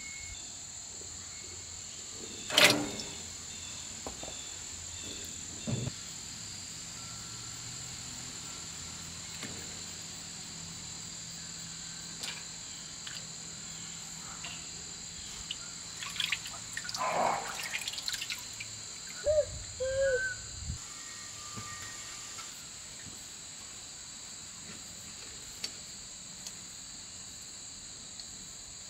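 Steady insect chorus, a high even trill, with a few short bird chirps around twenty seconds in. A sharp knock a couple of seconds in, the loudest sound, and some splashing about halfway, from hands washing mushrooms in water in a stainless-steel sink.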